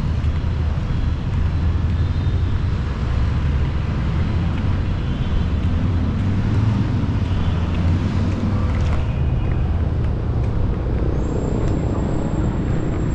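Busy city street traffic: a steady mix of motor vehicles running and passing close by.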